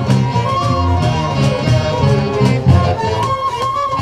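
Live folk band playing a tune: a section of fiddles carries the melody over guitars and hand drums keeping a steady beat.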